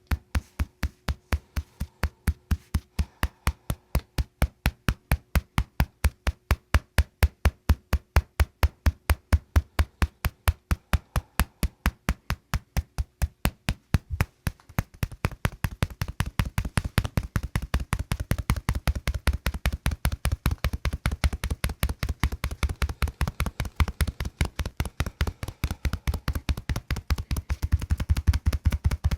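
Rapid, machine-even tapping clicks, several a second. About halfway through they come faster, with a fuller low thud.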